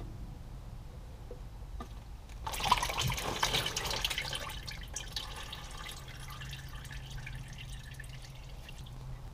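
Automatic transmission fluid splashing and trickling out of the valve body as the transmission filter is pulled free: a brief gush about two and a half seconds in that tapers off into dripping.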